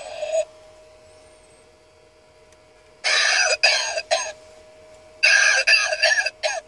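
A battery-powered novelty coughing ashtray playing a recorded cough through its small, tinny speaker: one fit of coughing about three seconds in and another about five seconds in, with a faint steady electronic tone underneath.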